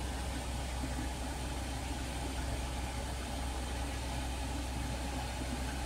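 Steady hum of a car's engine and road noise heard from inside the cabin while driving.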